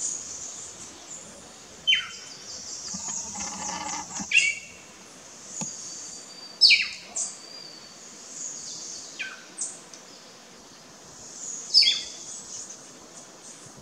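Pearly-eyed thrasher singing: loud phrases of notes that sweep steeply down in pitch, repeated about every two and a half seconds, over steady high chirping in the background.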